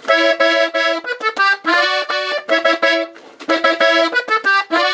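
Gabbanelli piano accordion playing a lively melody phrase in short repeated chords and quick runs of notes, with a brief break about three seconds in before the playing resumes.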